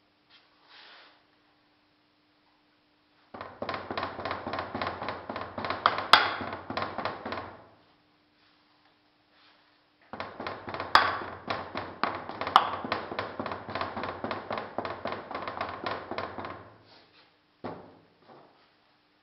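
Hand rammer tamping moulding sand into a metal casting flask: two long runs of quick strikes, several a second, then one last knock near the end.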